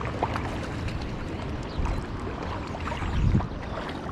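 Steady rush of river current around a wading angler, with two low bumps about a second and a half apart.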